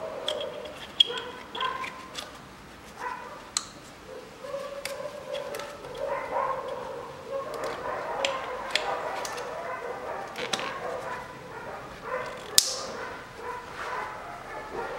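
Sharp plastic clicks as electrical connectors are pushed onto the ignition coils of a 1.2 turbo petrol engine, with a dog whining and yipping in the background.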